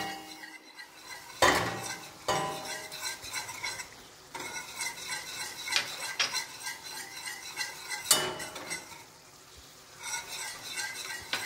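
Metal wire whisk stirring béchamel sauce in a stainless steel pot, its wires scraping and clinking against the pot, with a few louder knocks.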